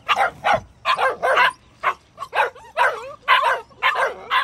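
Several young Aussiedoodle puppies yipping and whining, excited, in a quick run of about ten short, high barks.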